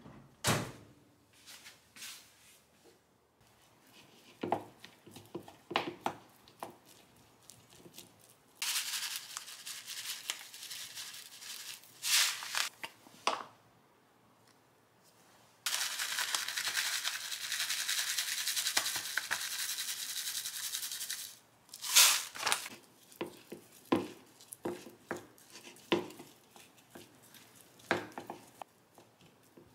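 Household handling sounds: scattered knocks and clicks, with two spells of steady hiss that start and stop abruptly, the longer one lasting about six seconds, and a sharp knock just after it.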